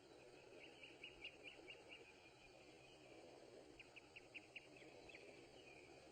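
Faint outdoor ambience with short high chirps in two quick runs, about a second in and again around four seconds in.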